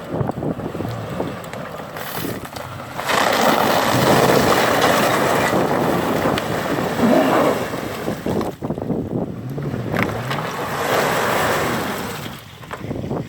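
Off-road SUV engine working hard while driving through mud and water, with churning and splashing that gets louder about three seconds in.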